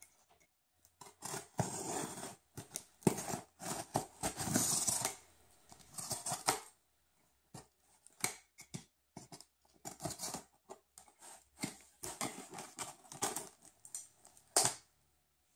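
Yellow utility knife slicing through plastic packing tape on a cardboard box, in irregular scraping strokes, with a sharper, louder stroke near the end.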